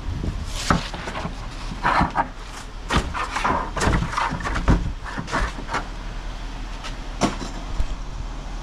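Thin sheet-steel door skin being pulled and peeled away from its glued styrofoam core: irregular crackling, creaks and sharp knocks as the metal flexes and the foam tears.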